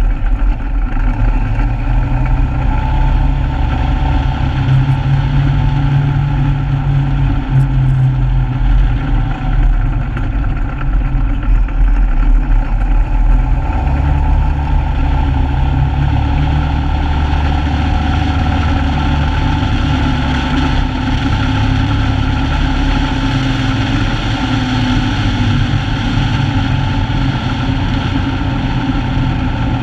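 A Polaris RZR side-by-side's engine running steadily at road speed, with road noise over it. The engine note drops about halfway through and rises again later.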